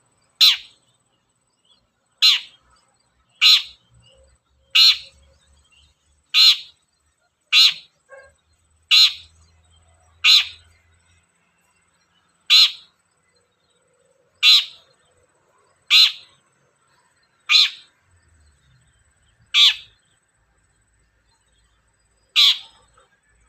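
Long-tailed shrike (cendet) giving short, loud, harsh calls, about fourteen of them, one every one to three seconds.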